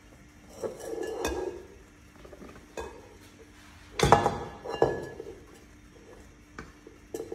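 Kitchen utensils working two mixing bowls: a wire whisk clinking against a glass bowl and a spatula scraping and knocking on a stainless-steel bowl as beaten egg whites are stirred into batter. There are a few scattered clinks and knocks, and the loudest comes about four seconds in.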